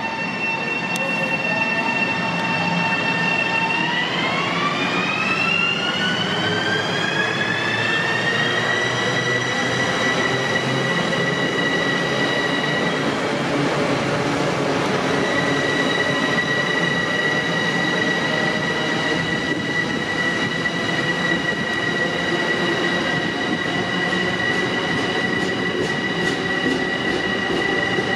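Long Island Rail Road electric multiple-unit train pulling out, its traction motors whining in several tones that glide upward for about five seconds as it gathers speed and then hold steady. The steady rumble of the train runs underneath.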